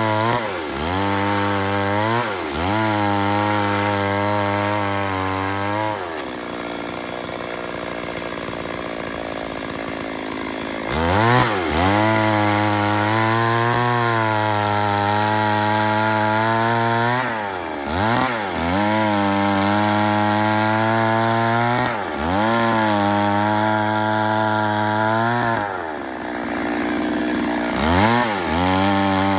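Two-stroke chainsaw running at high revs while cutting wood, its engine note dipping in pitch and recovering several times as the throttle drops and opens again. A quieter, rougher stretch comes about six seconds in and lasts about five seconds before the saw revs back up.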